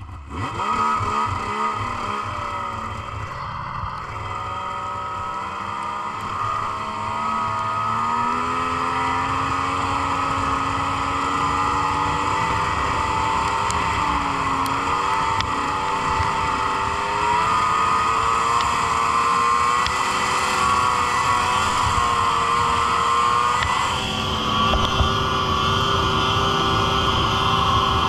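Yamaha SXR 600 snowmobile's three-cylinder two-stroke engine running under throttle while riding. Its pitch climbs over the first several seconds, then holds fairly steady with small rises and dips.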